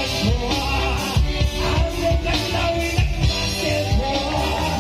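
Live rock band playing through PA speakers: electric guitar and keyboard over a steady drum beat.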